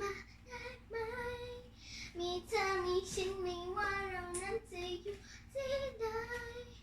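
A child singing a Thai pop song alone, with no instrumental backing: one high voice holding and sliding between notes in short phrases with brief breaths between them.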